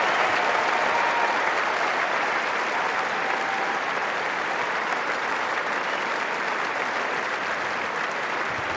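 Large stadium crowd applauding steadily, easing off slightly over the seconds.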